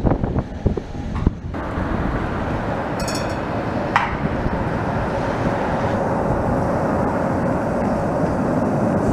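CKD Tatra T4D tram running along street track toward the listener, a steady rumble that slowly grows louder, with a brief high-pitched sound about three seconds in. Wind buffets the microphone for the first second and a half.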